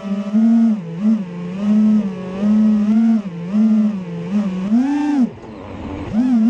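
Brushless motors of a 6S FPV freestyle quadcopter buzzing, the pitch swinging up and down again and again with quick throttle punches. The motors drop away briefly about five seconds in, then spool back up.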